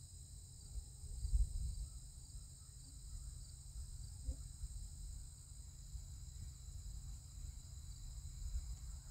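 Steady chorus of insects chirping, a high even drone, over a low rumble.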